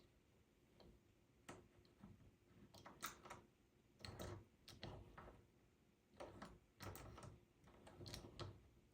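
A door knob and latch mechanism being worked by hand: faint clicks and short rattles as the knob turns and the spring latch slides in and out, repeated about every second or so.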